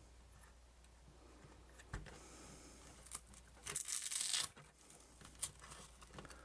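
Hands working at the plastic parts of an opened camcorder: a click about two seconds in, then a second or so of scraping and rustling, and another click near the end.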